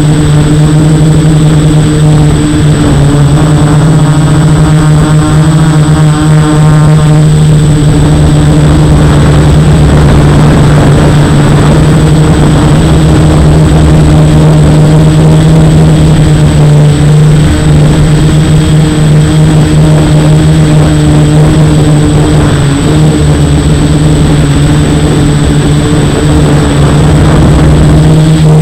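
F450 quadcopter's brushless motors and propellers running: a loud, steady buzz at a nearly constant pitch.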